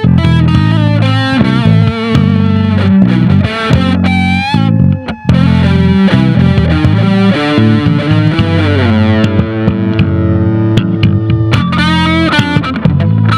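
Distorted electric guitar playing an A minor blues lead, with string bends and vibrato, over a steady low bass line.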